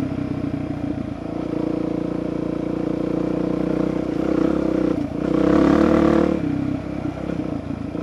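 Dirt bike engine running under way along a rough dirt trail, with some rattling. The engine gets louder for about a second from around five seconds in, then eases off.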